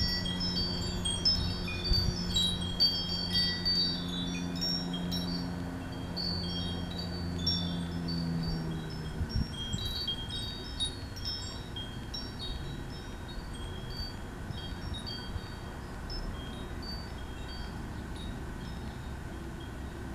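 Wind chimes tinkling irregularly, many short overlapping high ringing notes, busiest in the first half. Under them a low steady hum stops about nine seconds in.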